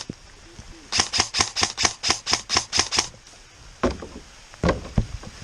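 An airsoft electric rifle firing a rapid string of shots, about five a second for two seconds, after a brief pause. A few scattered knocks follow near the end.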